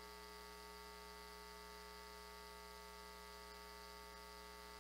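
Near silence, with only a faint, steady electrical mains hum.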